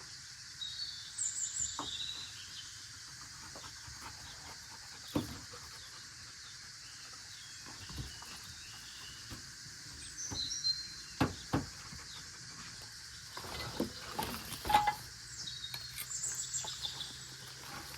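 Outdoor ambience with a steady insect hiss, birds chirping briefly three times, and scattered sharp knocks and handling clicks, with a cluster of them near the end.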